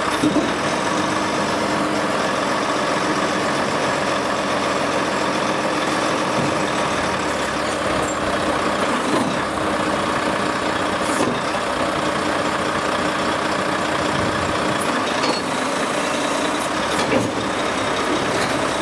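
Heavy machinery running steadily with a constant hum, broken by a few short knocks or clanks spread through the stretch.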